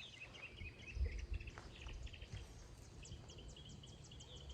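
Songbirds chirping, with a fast run of short, high notes, several a second, in the second half, and a brief low rumble about a second in.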